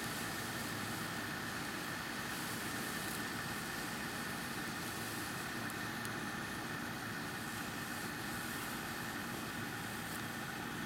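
Steady outdoor background noise: a constant low hum and hiss that does not change, with a few faint clicks.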